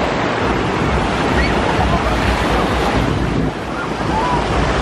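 Small waves breaking and washing up on a sandy shore, with heavy wind rumble buffeting the microphone.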